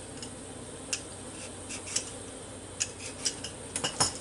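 Vegetable peeler scraping skin off a potato in short strokes, roughly one a second, with a quicker cluster of sharper clicks near the end.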